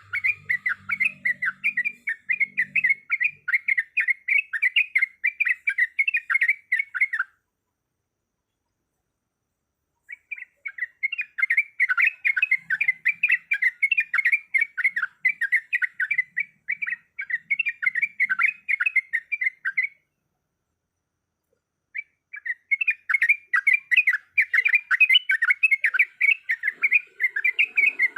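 Yellow-vented bulbul (trucuk) singing a fast, chattering series of notes, about three a second, in three bouts broken by two gaps of a few seconds. It is a lure recording used to provoke captive trucuk into singing.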